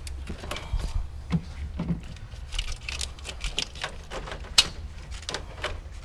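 Plastic connectors and harness clips clicking and rattling as hands unclip the fuel injector wiring harness from the fuel rail, with one sharper snap about four and a half seconds in.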